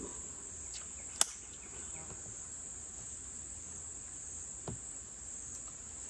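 Steady high-pitched insect chorus, with one sharp click about a second in.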